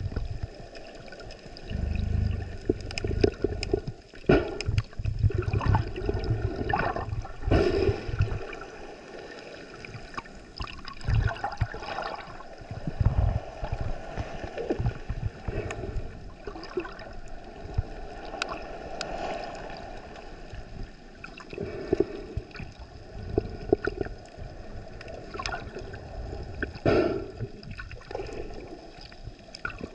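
Water sloshing and gurgling, with uneven low rumbling surges and scattered knocks and clicks.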